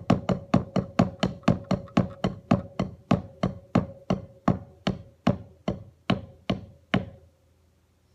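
Wooden drumsticks striking a hard surface in a steady beat, about four hits a second, slowing to about two and a half a second before stopping about seven seconds in. A faint ringing tone carries under the hits.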